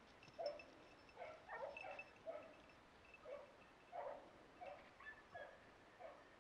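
Hunting dog barking faintly, about ten short barks at irregular intervals.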